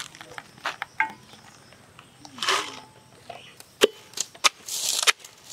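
Green chillies rustling as they are tipped into a mortar, then a pestle knocking down into them with three sharp strikes in the last second and a half.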